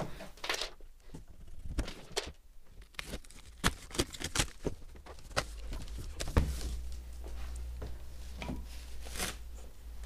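A cardboard box being opened and unpacked by hand: cardboard flaps rustling and knocking, and plastic wrapping crinkling as a part is lifted out, in a string of short irregular rustles and clicks.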